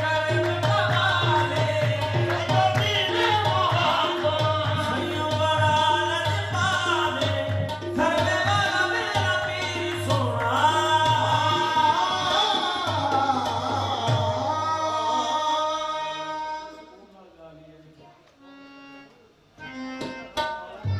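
Live qawwali: several men singing with harmonium accompaniment and a steady hand-drum beat. About sixteen seconds in the music stops abruptly, leaving a few quieter held notes.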